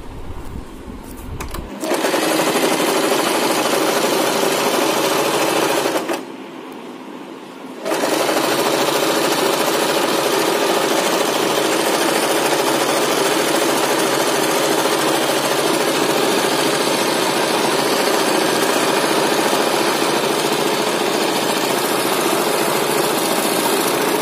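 Sewing machine running steadily as it stitches the split side seam of a furry plush teddy bear. It starts about two seconds in, stops briefly about six seconds in, and starts again a couple of seconds later.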